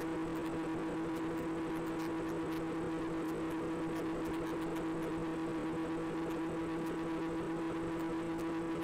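Steady hum of a flying wing's electric motor and propeller running at constant cruise throttle, one fixed pitch with no rise or fall, heard through the airframe by the onboard camera.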